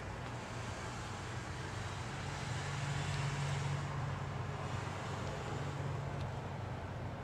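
Road traffic in falling snow: a steady low engine hum under a hiss, swelling a little near the middle as a vehicle goes by.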